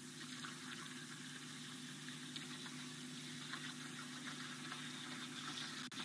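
Faint waterhole ambience: a fine crackling, trickling hiss full of tiny clicks and a high-pitched buzz, growing a little louder near the end, over a steady low electrical hum.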